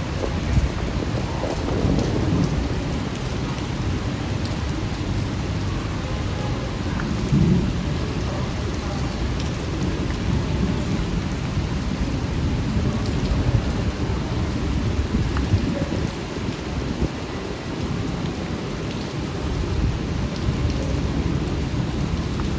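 Steady rain falling on a street: a dense even hiss of drops over a heavy low rumble, with a few briefly louder moments, one at about seven and a half seconds.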